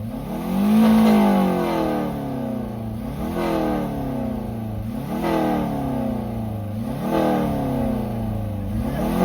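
A car engine being revved over and over: about five throttle blips roughly two seconds apart, each rising quickly in pitch and sinking away slowly, the first one the loudest.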